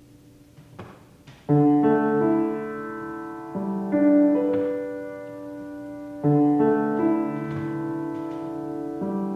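Piano music: slow, sustained chords that change every two to three seconds. They begin about a second and a half in, after a couple of faint clicks.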